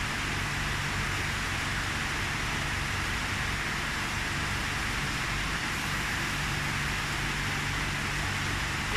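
Water pouring steadily into a koi tank, a constant rushing splash, over a low steady hum.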